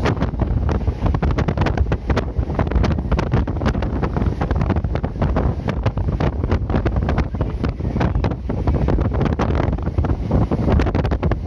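Passenger train running: a steady low rumble with a dense, irregular clatter of wheels and coach fittings, and wind buffeting the microphone.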